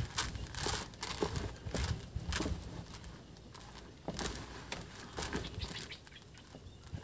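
Hands kneading and squeezing a moist mash of chopped banana stem, Napier grass, mulberry leaves, fine rice bran and catfish pellets in a plastic basin, mixing the catfish feed until it can be pressed into balls. An irregular run of rustling strokes, busiest in the first couple of seconds and sparser after.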